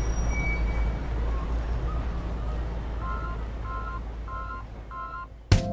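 Street traffic rumbling and fading, with four evenly spaced two-tone electronic beeps from about three seconds in. Loud drums cut in at the very end.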